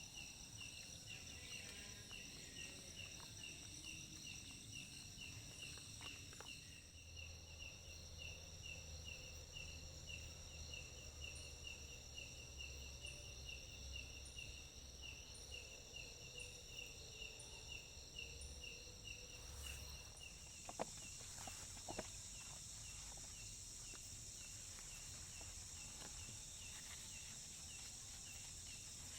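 Faint insect chorus: one insect chirping steadily, about two to three chirps a second, over steady high-pitched insect drones. About twenty seconds in, a hissier high drone joins, with a few faint knocks.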